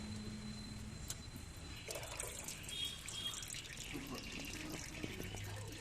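Faint liquid running and splashing, starting about two seconds in, with small handling clicks.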